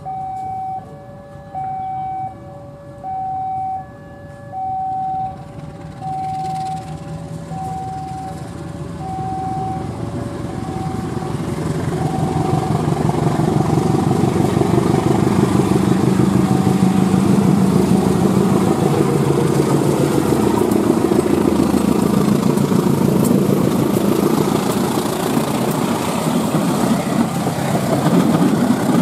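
An alternating two-note warning tone sounds steadily, high-low about once a second, and fades after roughly ten seconds. Meanwhile two CC203 diesel-electric locomotives working in tandem come up and pass close under power, their engines growing loud and staying loud, with the train's cars rolling behind.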